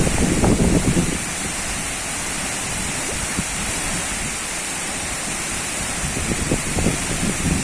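Waterfall pouring with a steady, heavy rush of falling water. Wind buffets the microphone with a low rumble in the first second and again near the end.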